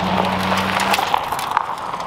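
Chevrolet Silverado pickup towing a loaded utility trailer drives past on a dirt track, with sharp clicks and rattles, over background music.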